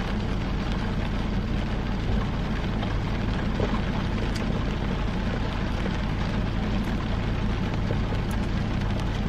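Steady rain on a car's roof and windows, heard from inside the cabin over a constant low hum from the car.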